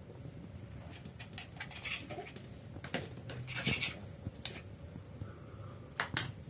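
Objects being handled: light clattering and rustling in a few short bursts, the loudest about halfway through.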